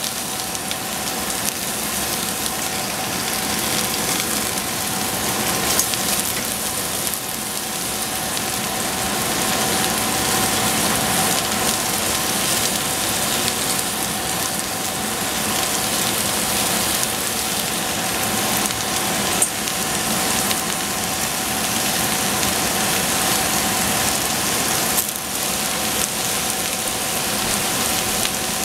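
Food frying in hot oil in a pan: a steady sizzle with scattered small pops, over a steady mechanical hum.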